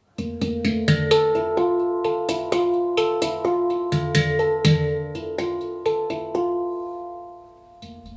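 Music played back through Focal Stella Utopia Evo loudspeakers: a quick run of plucked or struck notes that ring on over a low bass. The music fades down near the end.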